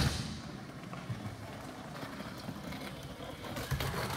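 Low, steady rumble of skateboard wheels rolling over the skatepark's floor and ramps, with a faint knock right at the start.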